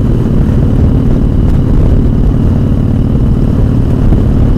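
Motorcycle engine running steadily at highway cruising speed, under heavy wind rush on the microphone.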